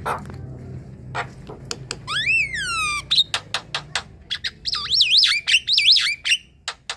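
Javan myna singing: short harsh clicks and chatter, a loud rising-then-falling whistle about two seconds in, and a fast wavering warble about five to six seconds in.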